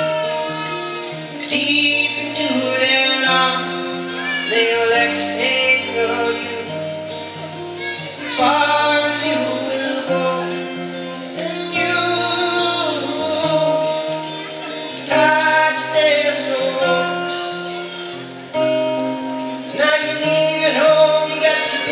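A man singing live, accompanying himself on an acoustic guitar, with the guitar's bass notes held under the vocal melody.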